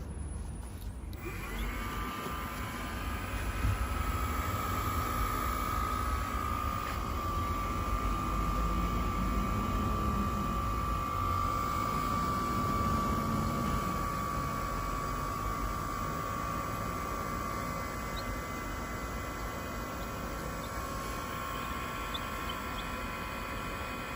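Kawamoto Soft Kawa-Ace NF3-250SK inverter well pump starting up about a second in and then running, its motor giving a steady high whine over a low rumble.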